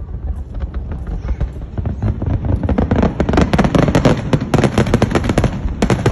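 Fireworks going off: scattered sharp pops thicken into a dense, rapid run of crackling about two seconds in, then thin out near the end.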